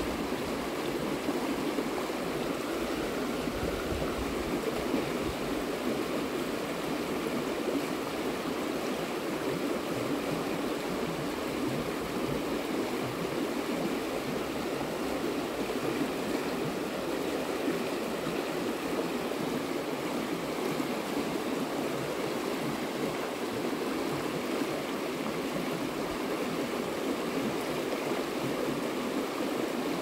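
A river's steady rushing flow of water.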